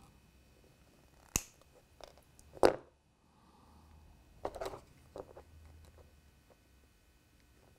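Side cutters snipping through solid-core wire: two sharp snips about a second apart, the second the louder, followed by a few lighter clicks of handling the wire and tools.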